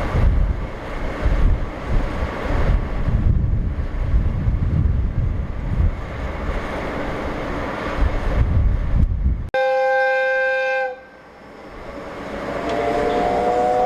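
Heavy wind buffeting the microphone with a low rumble, then an abrupt cut to a steam locomotive's whistle, a steady blast of about a second and a half. Near the end a second whistle sounds, its pitch slowly rising.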